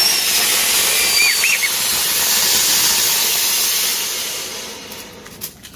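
Ground fountain firework (anar) spraying sparks with a loud steady hiss that dies down near the end.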